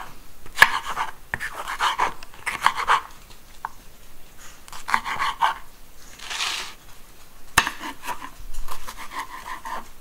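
Kitchen food preparation: a knife chopping on a board and dishes clinking, in short clattering runs, with a brief hiss about six seconds in.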